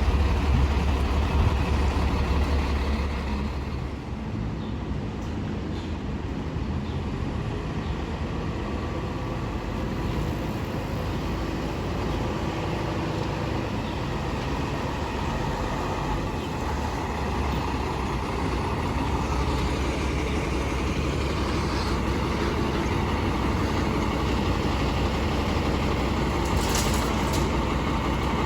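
Heavy diesel fire engine running with a steady low rumble, easing off for a few seconds about four seconds in.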